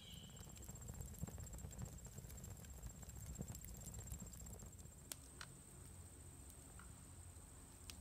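Quiet campfire crackling: scattered faint pops and ticks over a low steady rumble, with a sharper click about five seconds in.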